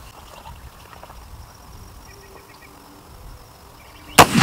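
A Barrett .50 BMG rifle fires a single shot of ball ammunition near the end, a very loud sharp blast that rings on in a long echo. Before it there is only quiet outdoor background.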